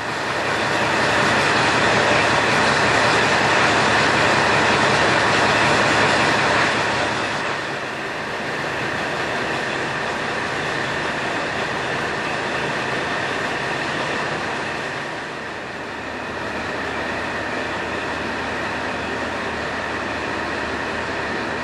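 KiHa 40 diesel railcar running, its JNR-era DMF15HSA diesel engine loud for the first seven seconds or so, then easing to a lower steady level, with a brief dip about two-thirds of the way through.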